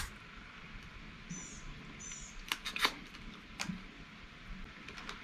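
Steamed blue crab shells being picked apart by hand while eating: a few scattered sharp clicks and cracks, the loudest between about two and a half and three and a half seconds in. Two short high chirps come in the first two seconds.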